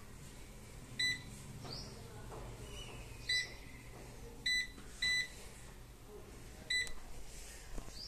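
Five short, high electronic beeps from a DSP 12-litre digital air fryer's touch control panel, one for each button press as its time and settings are changed. The beeps come at uneven gaps, two of them close together about two-thirds of the way through.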